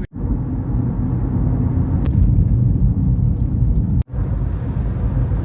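Steady low rumble of a vehicle on the move, broken by two very brief gaps.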